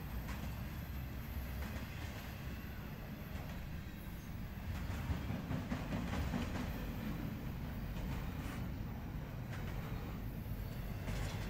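Intermodal freight train rolling past: a steady rumble of steel wheels on the rails, with occasional clicks and knocks, swelling a little about halfway through.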